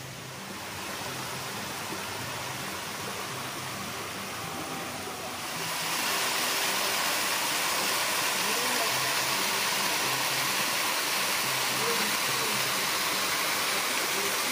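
Small waterfall cascading down a rocky creek bed: a steady rush of falling water that grows louder about five and a half seconds in.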